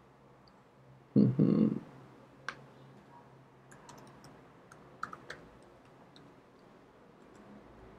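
Computer keyboard keys clicking in scattered, irregular keystrokes as code is typed. A brief, louder low sound comes a little over a second in.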